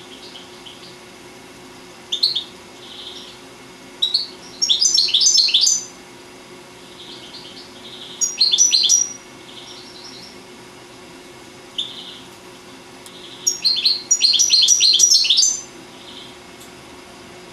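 European goldfinch singing: loud bursts of rapid, high twittering song, three longer phrases of one to two seconds each, with short single notes and softer notes between them.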